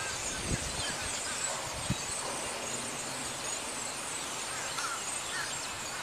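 Large flock of birds chattering in a tree, many small overlapping calls, over steady wind noise, with two low thumps of wind on the microphone about half a second and two seconds in.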